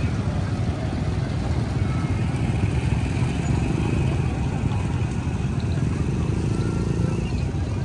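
Steady city street traffic, motorcycles and cars running past, with a faint murmur of voices.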